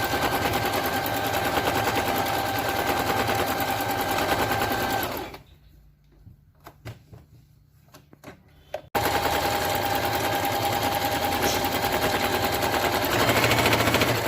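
Singer Fashion Maker 8280 electric sewing machine stitching fast: a rapid needle rattle with a steady motor whine. It stops about five seconds in, a few faint clicks follow, and it starts again abruptly some four seconds later.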